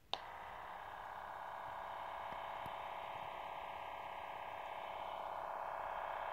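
Handheld ham radio transceiver receiving a signal: a click as the squelch opens, then a steady, buzzy tone through its small speaker.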